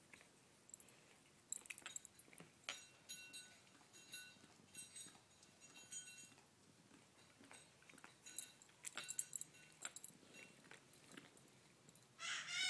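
A dog licking another dog: faint, irregular wet licking and smacking sounds with light clinks of collar tags. Near the end a brief, louder dog vocalization.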